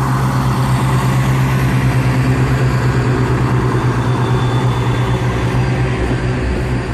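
Diesel multiple unit engines idling at the platform: a steady, loud low drone.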